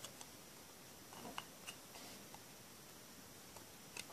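Faint, scattered small clicks and ticks of a smartphone's display and frame being handled and pressed apart by hand as the softened adhesive lets go.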